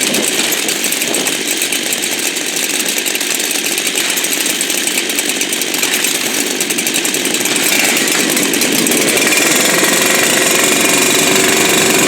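Two-stroke chainsaw running at high revs. About eight seconds in its sound gets a little louder and steadies into an even, pitched note.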